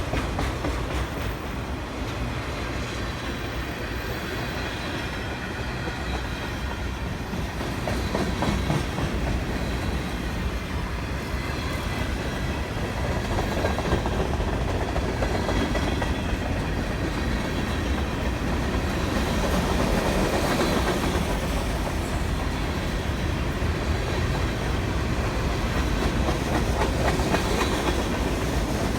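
Train running: a continuous rumble with irregular clatter that gets louder about a quarter of the way in and again past the middle.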